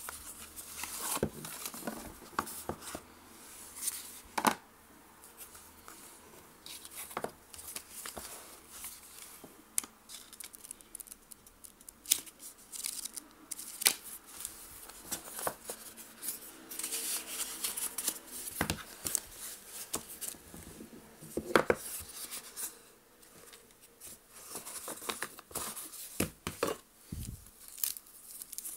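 Hands unboxing a wristwatch: a cardboard watch box and its packaging being handled, with rustling and many scattered sharp clicks and taps.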